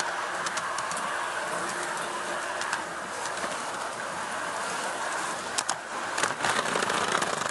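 G-scale model train running along outdoor garden track: a steady motor-and-wheel hum with scattered clicks, turning into a rapid clatter of wheels over the track about two-thirds of the way in.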